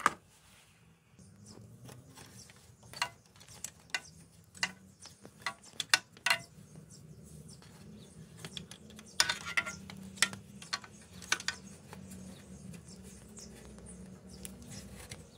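Metal wrench clicking and clinking irregularly against a bolt as it is turned, over a low steady hum.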